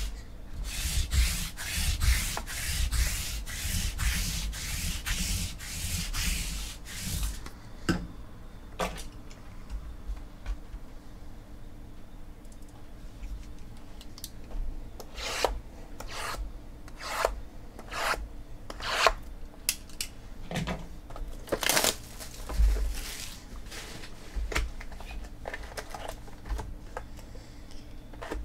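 Lint roller rolled back and forth over a cloth table mat, making repeated sticky rubbing strokes at about two a second for roughly the first seven seconds. After that come scattered crinkles and tears of a foil trading-card pack being opened, and cards being handled.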